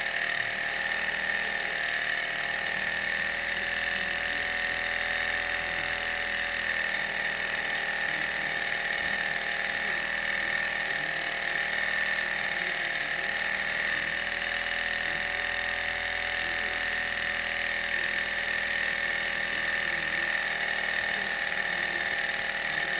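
Small hot-air Stirling engines running steadily, a continuous mechanical whir with a constant high whine.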